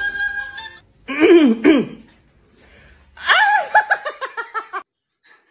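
A man laughing loudly in a rapid run of ha-ha pulses that fall in pitch, starting about three seconds in. Before it, a held sung note ends at the start, and a loud sliding vocal outburst comes about a second in.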